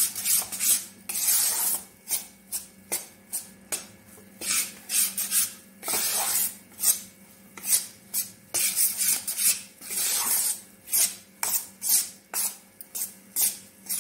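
Metal spatula scraping and stirring gram flour roasting in ghee in a stainless steel kadhai, in short, uneven strokes about twice a second.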